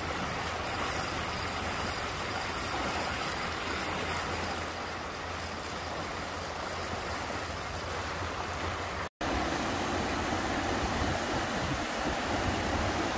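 Muddy floodwater of a flash flood rushing down a wadi channel, a steady rush of water. About nine seconds in there is a brief break, and the rushing goes on a little louder as the flood churns through a road bridge's culverts.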